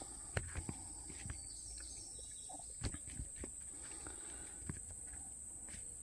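Faint outdoor quiet with a steady high-pitched insect chirring, and a few soft clicks and taps from handling.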